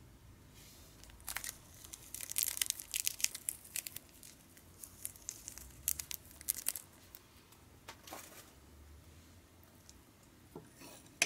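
Small clear plastic packet of shichimi togarashi being torn open and crinkled as the spice is shaken out, in bursts of rustling for several seconds. A single sharp tap near the end, a metal spoon against the plate.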